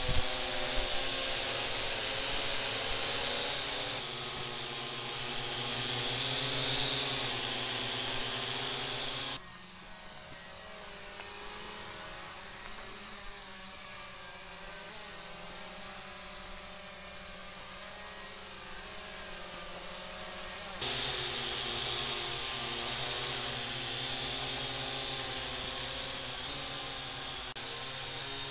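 Syma X8 quadcopter's four propellers and motors whining in flight, a buzz of several pitches that waver together as the throttle changes. The whine drops abruptly to a quieter level about nine seconds in and comes back louder about twenty-one seconds in.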